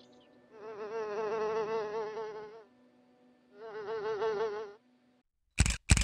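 A flying insect buzzing close by in two passes, the first about two seconds long and the second about one second, its pitch wavering. Near the end come two sharp, loud knocks.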